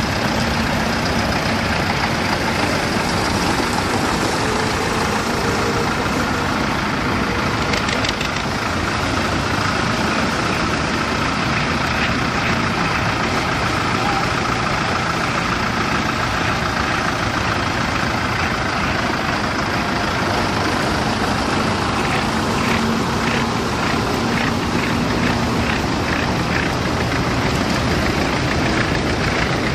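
Several vintage tractors driving past one after another at low speed, their engines running together in a steady mixed drone. Near the end one engine adds a regular knocking beat.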